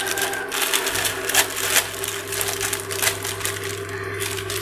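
Plastic instant-noodle packet crinkling as it is shaken out over a pan, with scattered sharp clicks. A steady hum from an induction cooktop runs underneath.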